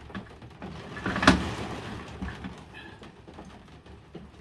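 Screwdrivers and their plastic holder being handled, small clicks and rattles with one sharp clack about a second in.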